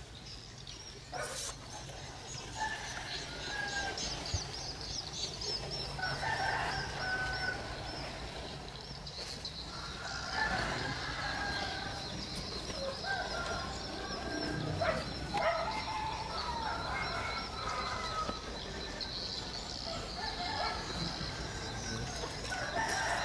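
Poultry clucking and calling on and off, short pitched calls scattered throughout, over a steady high-pitched buzz.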